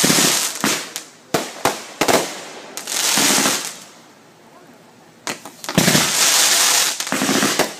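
Backyard aerial fireworks going off: a string of sharp bangs, with stretches of dense hissing noise about a second long between them and a brief lull near the middle.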